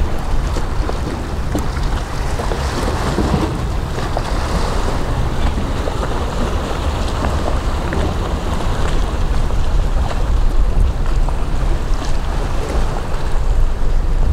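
Sea waves washing on a rocky shore, with wind buffeting the microphone in a steady low rumble.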